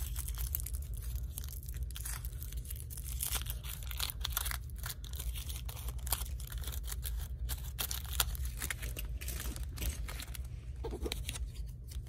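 Clear plastic wrapper crinkling and tearing as it is peeled open by hand, in quick irregular crackles, over a steady low hum.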